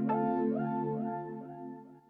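Background music: soft ambient synthesizer chords with gliding notes, swelling in at the start and fading toward the end.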